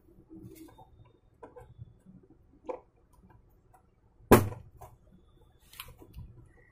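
Plastic snap-clips of an LCD monitor's back casing clicking as the case is pried apart by hand: scattered small clicks and rustles, with one sharp snap a little over four seconds in.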